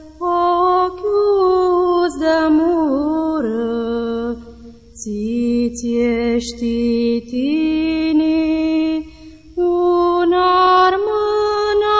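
A solo voice singing a slow, chant-like melody in long held notes that step and glide between pitches, with a few short breaths between phrases.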